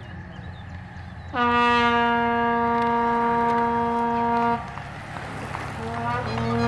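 A horn blowing one long steady note for about three seconds, starting about a second and a half in and cutting off sharply, then sounding again near the end, over the noise of a bunch of road-race cyclists riding past.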